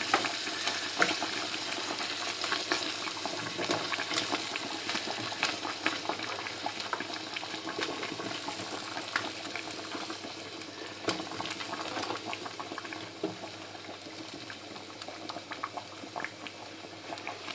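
Water and meat juices sizzling and simmering in a hot roasting pan around a browned pork roast, a steady hiss full of small crackles. Occasional light knocks as chopped soup vegetables are put into the pan.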